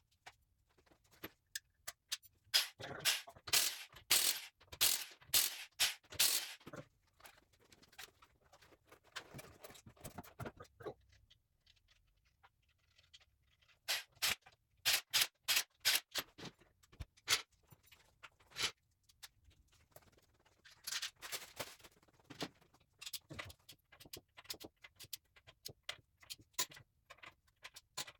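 Ratchet wrench with a 21 mm socket clicking in quick runs, three main bursts of a few seconds each with scattered clicks between, as lug nuts are run down on a car wheel.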